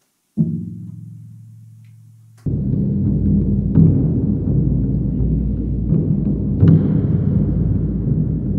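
One stroke of a felt mallet on a large double-headed cowhide shaman drum, 104 cm across, giving a low boom that dies away over about two seconds. Then a loud, continuous deep rumble of the drum played with soft mallets in a church with a long echo, with heavier strokes about every three seconds.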